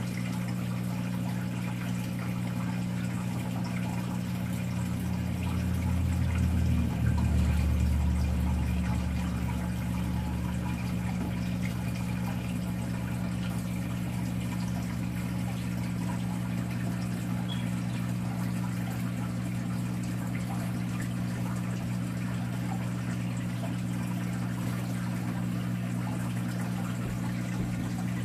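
Saltwater aquarium's pump and water circulation running with a steady low hum and a trickling wash of water. A deeper low rumble swells up about five seconds in and fades out by about ten seconds.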